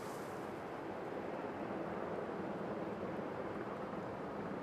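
Jet airliner engines at taxi idle heard from a distance, a steady rumble, with a faint brief hiss right at the start.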